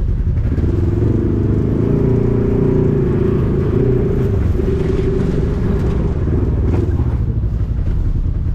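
Polaris RZR XP 1000 side-by-side's twin-cylinder engine heard from inside the cab, revving up about half a second in and running hard with a wavering pitch, easing off around halfway. Later there are a few sharp clattering knocks from the machine.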